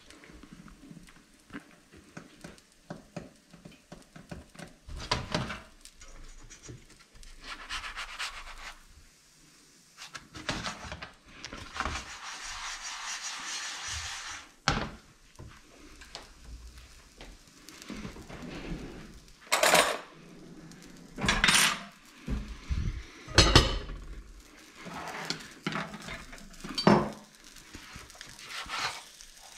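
Frying pan and metal utensils clattering and scraping against a glass hob while a quesadilla cooks, with a stretch of hissing about halfway through and several sharp metal clinks later on.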